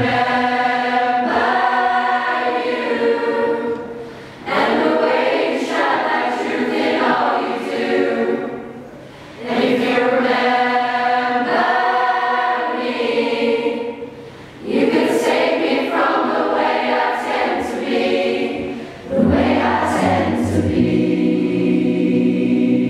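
A cappella singing by a large choir of school students together with a male vocal group on handheld microphones, with no instruments. The singing comes in held phrases of about five seconds each, broken by short pauses.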